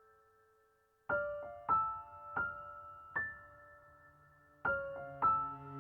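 Background piano music: single notes struck one after another, each ringing and fading, after a brief near-silent pause about a second in.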